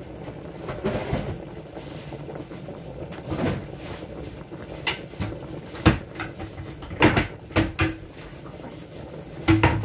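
A plastic trash bag being handled and shaken open, rustling and crinkling, with several sharp knocks and clatters from about halfway through.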